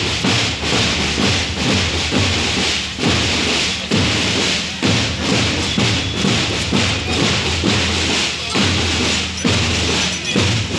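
A walking street procession: irregular thumps, about one or two a second, over a steady hiss, with music mixed in.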